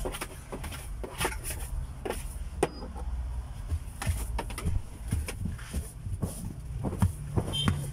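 Irregular taps, knocks and scraping strokes as a long-handled cleaning tool is worked over a car's dashboard and door trim, over a low steady hum.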